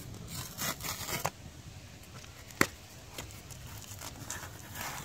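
Hands handling wiring and plastic parts under a car's dash: light rustling and scraping with a few small clicks, and one sharper click about two and a half seconds in.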